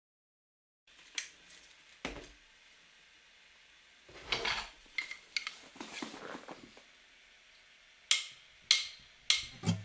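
Light clinks and knocks of small household objects being handled, a few at a time with pauses between, and a short rustling scrape about four seconds in.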